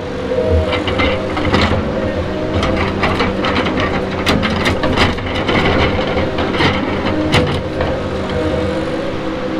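Tigercat 234B log loader running under load, its engine and a steady whine underneath a series of sharp knocks and clicks as the grapple works over the log deck.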